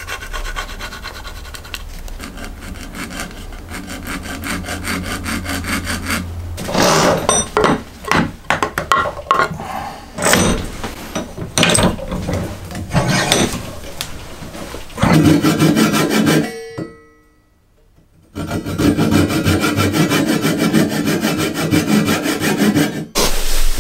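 Japanese pull saw cutting a wedge from an oak offcut clamped in a vise, in fast, even strokes. The strokes are broken by a stretch of irregular knocks and handling in the middle, and the sound drops out briefly about two-thirds of the way through.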